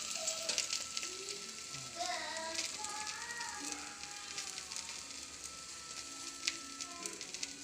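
Fish coated in spice paste sizzling and crackling on a grill pan, with the heat just turned off.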